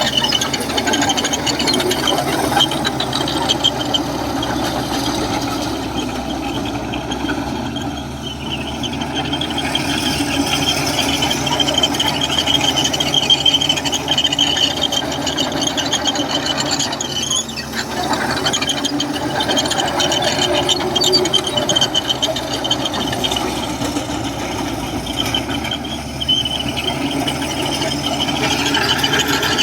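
Komatsu crawler bulldozer working, its diesel engine running steadily under a high, wavering squeal from the steel tracks that fades and returns.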